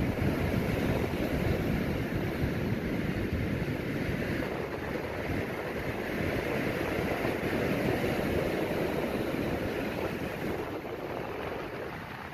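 Storm surf whipped up by a tropical cyclone, breaking and washing up a rocky shore: a continuous rushing of churning water that swells and eases, fading a little near the end.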